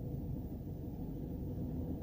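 Car with a 1.4 TSI CAXA four-cylinder turbo petrol engine, heard from inside the cabin: a steady low rumble with no distinct knocks or clicks.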